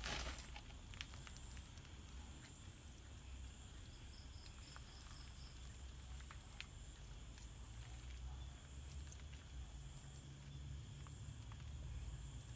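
Crickets trilling steadily and faintly in a high, even pulse, over a low rumble. A brief rustle at the start and scattered light clicks come from handling the wire grill basket over the charcoal.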